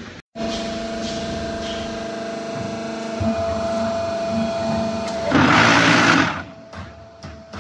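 QT4-18 hydraulic concrete hollow block machine running: a steady mechanical hum from its motors, with a louder, harsher burst lasting about a second, about five seconds in, then quieter running with a few light knocks.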